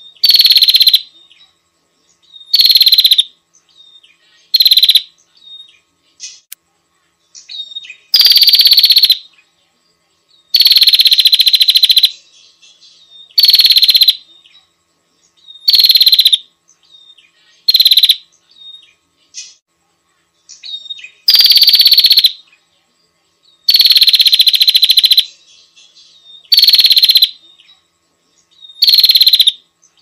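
Prenjak lumut bird-lure recording: a small songbird's loud, harsh, high-pitched call phrases repeated about every two to three seconds. Each phrase lasts from half a second to a second and a half and dips slightly in pitch as it starts, with short quiet gaps and a few faint small calls between.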